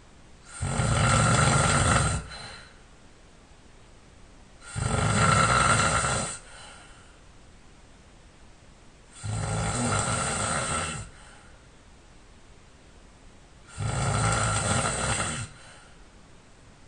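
A sleeping man snoring: four long snores, one about every four and a half seconds, each lasting under two seconds, with quiet gaps between them.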